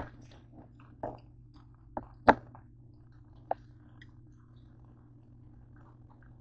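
Raw pork and a kitchen knife being handled on a plastic cutting board: a few separate knocks and taps, the sharpest a little over two seconds in, over a steady low hum.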